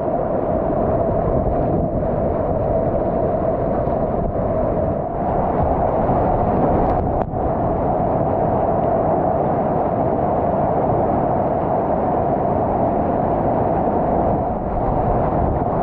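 Steady rush of whitewater rapids around a slalom kayak as it is paddled through breaking waves, with a few brief splashes from the paddle strokes.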